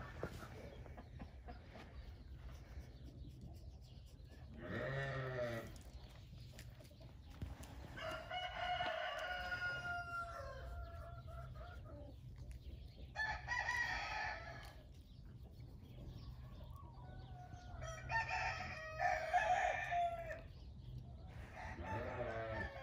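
Roosters crowing, about five long crows a few seconds apart, some held on a steady pitch and some bending, over a steady low hum.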